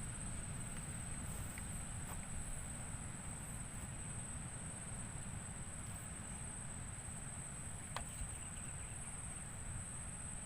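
Steady outdoor background noise: a low rumble under a constant high-pitched whine, with a single sharp click about eight seconds in.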